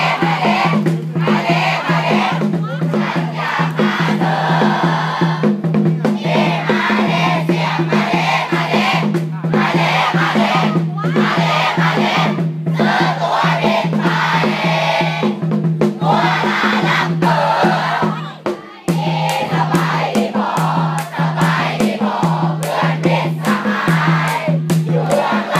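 A school cheering section of many students chanting and shouting cheers in unison over a steady drum beat, with a brief dip about three-quarters of the way through.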